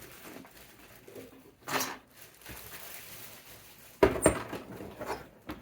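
Handling noises as a printer and its packaging are moved about: a brief rustle near two seconds in, then a sharp knock about four seconds in followed by a few lighter knocks.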